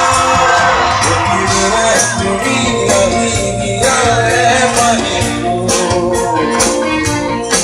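Live band music from a stage performance of an Assamese song, with sustained melodic lines and a steady percussion beat of about two strikes a second.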